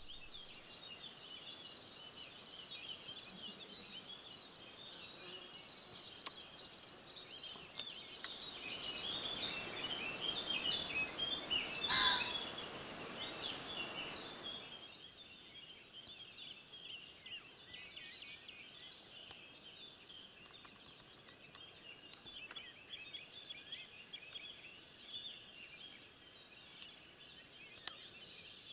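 Birds chirping and singing in a dense chorus, with a single loud, harsh crow from a cock pheasant about twelve seconds in. Several short rapid trills sound in the second half.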